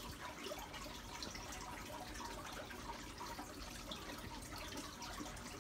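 Aquarium air bubbler running: a steady stream of air bubbles rising and popping at the water surface, with small irregular water ticks and splashes.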